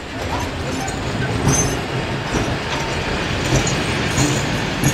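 Heritage railway passenger carriages rolling past close by: a steady rumble of steel wheels on the track, with sharp clacks of the wheels over the rail at uneven intervals, about once a second.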